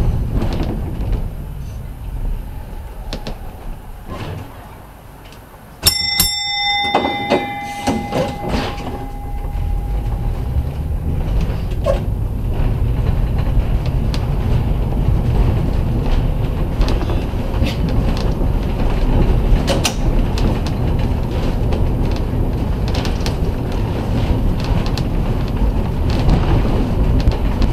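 Historic streetcar running on its track with a steady low rumble of wheels and running gear. The rumble eases off for a few seconds, then the car's bell is struck several times about six seconds in, its ringing tone hanging on for a few seconds before the rumble picks up again.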